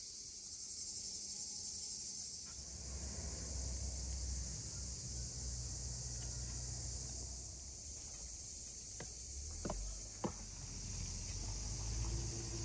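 Steady high chirring of an insect chorus, with a low rumble underneath. A few light clicks and knocks sound about nine to ten seconds in, from chicken pieces being handled on the board and plates.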